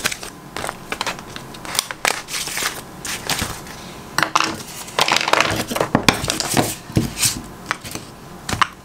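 Papers and craft supplies being gathered and moved across a desk: irregular rustling and crinkling of paper with small clicks and knocks as things are picked up and set down.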